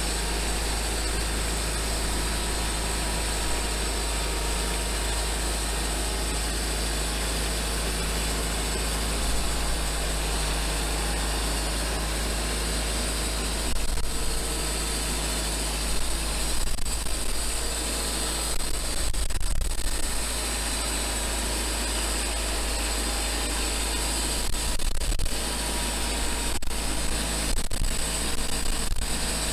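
Homemade band sawmill running steadily on one of its first cuts, the engine driving the band blade through a log, with a few short louder, rougher stretches along the way.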